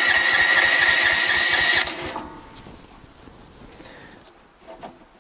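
Mygale 500 micro excavator's electric starter cranking the cold engine, a steady whine over rapid pulses, which cuts off about two seconds in without the engine catching. The engine is cold and has not run for a while.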